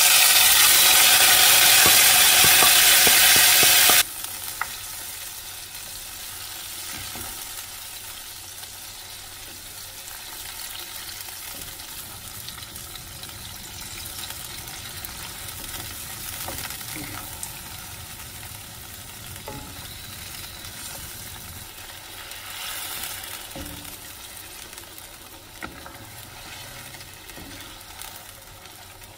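Yogurt-marinated lamb hitting hot oil in a wok with a loud sizzle, which cuts off suddenly about four seconds in. Then a quieter, steady frying sizzle as a wooden spatula stirs and scrapes the meat around the pan, with scattered light knocks.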